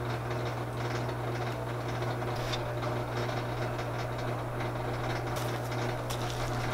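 A steady low hum with a constant rushing noise behind it, unchanging throughout.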